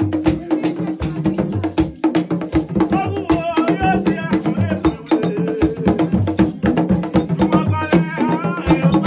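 Haitian Vodou ceremonial music: fast, steady drumming with a shaken rattle and sharp clicking strikes, and voices singing a line in the middle and again near the end.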